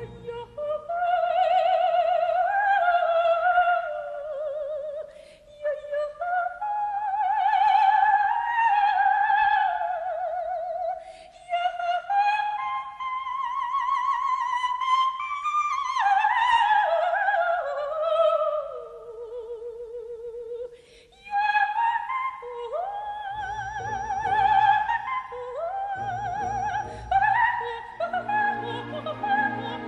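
Coloratura soprano singing a waltz line with strong vibrato, in phrases with short breaths between them, almost unaccompanied for most of the passage. The orchestra comes in softly underneath about two-thirds of the way through.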